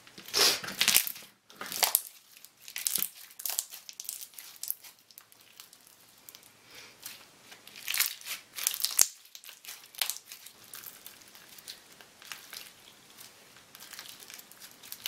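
Fishbowl slime being squeezed and pressed by hand, its plastic beads crunching and crackling in irregular bursts.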